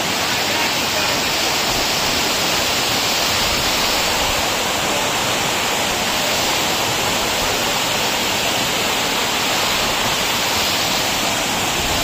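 Loud, steady rush of a waterfall: water pouring and splashing over rock.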